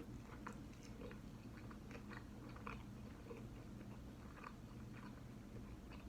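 Faint close-up chewing of a hard taco shell filled with rice, beans and lettuce: irregular soft crunches and wet mouth clicks.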